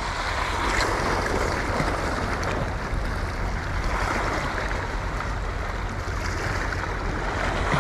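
Sea surf washing against a rocky shoreline, a steady rush of small waves breaking on the rocks.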